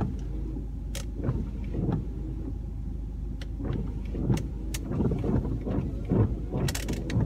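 A large truck's engine idling, a steady low hum heard from inside the cab, with scattered clicks and knocks from handling inside the cab.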